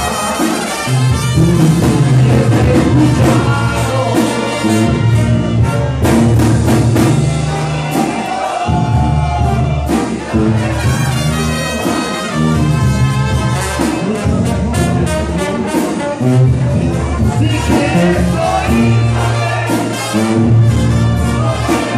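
Live Mexican banda playing: a brass section of trumpets and trombones over a steady low bass line, in a loud, continuous rhythmic passage.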